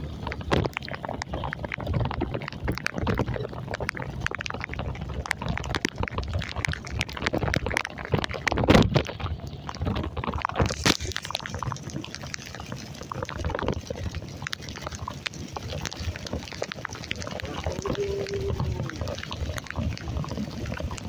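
Heavy rain: a dense crackle of drops hitting close to the microphone over a low rumble, with a louder burst about nine seconds in.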